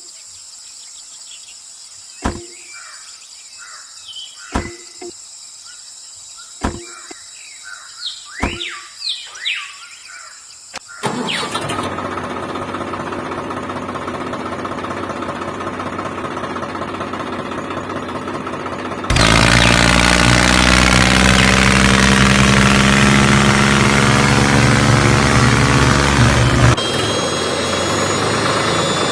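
A few sharp taps and short bird chirps, then a steady engine sound starts about a third of the way in. It turns much louder and deeper about two-thirds in, then drops back a little near the end.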